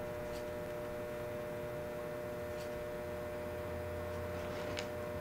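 Steady electrical mains hum, with a few faint ticks.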